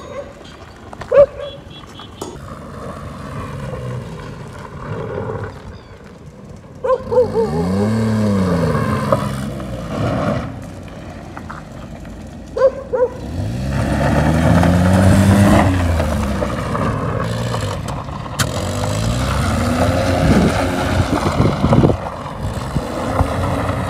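Maruti 800's small three-cylinder petrol engine revving up and dropping back several times as the car is driven off-road. A dog barks a few times.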